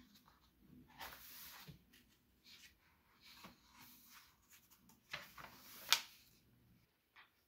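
Paperback picture book being handled and its cover turned: faint paper rustles, then a louder swish of the turning cover that ends in a sharp paper snap about six seconds in.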